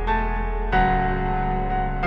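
Background music: slow, sustained chords, with a new chord coming in about three-quarters of a second in.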